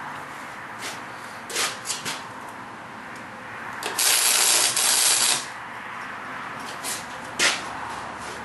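Electric welder tacking steel: two short bursts of crackling arc hiss back to back about four seconds in, with a few sharp clicks of metal handling around them.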